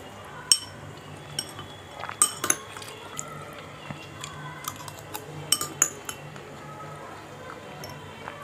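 Metal spoon clinking and scraping against a ceramic bowl while scooping chickpea curry, with several sharp clinks.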